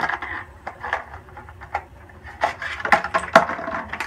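Irregular rustling and light knocks of things being handled, with a few short, indistinct vocal sounds among them.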